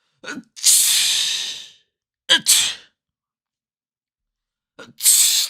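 Three human sneezes in a row, each a quick voiced gasp followed by a sharp hissing burst; the first is drawn out over about a second, the second and third are short.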